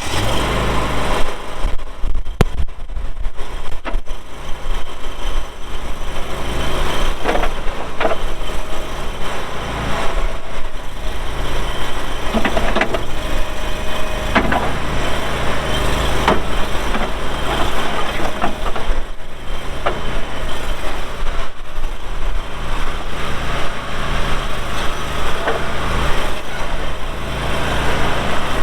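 Kohler gas engine of a Boxer 320 stand-on skid steer running steadily under work, with scattered clanks and knocks from the machine as it is operated.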